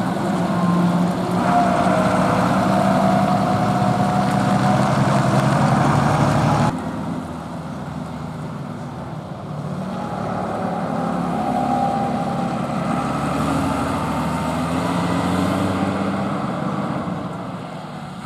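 Renault 155.54 tractor's MWM diesel engine pulling a loaded bale trailer, a steady engine note with a higher whine above it. It drops suddenly about a third of the way in, swells again, then fades as the tractor pulls away.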